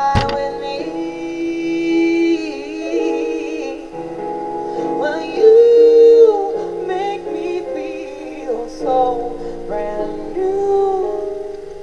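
A woman singing a slow soul song into a microphone with band accompaniment, holding long notes with vibrato. A sharp knock at the very start.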